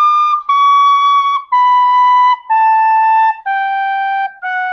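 Penny whistle playing a descending sargam scale, from high sa down through ni, dha, pa, ma and ga. Each note is held a little under a second, with a short break between notes, and every note steps lower than the one before.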